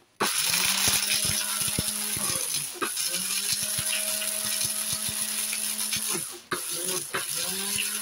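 Small electric blender grinding dried orange peels, run in three pulses of a few seconds each. Each time the motor spins up to a steady whine, while the hard bits of peel rattle and click against the blades and bowl.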